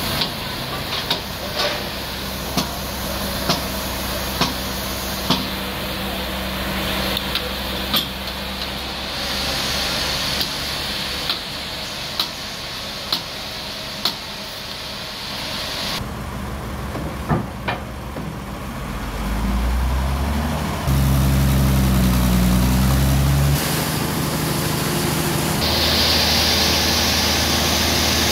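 Sawmill machinery engine running steadily, with sharp knocks about once a second through the first half; the engine gets louder and deeper from about two-thirds of the way in, with a hiss toward the end.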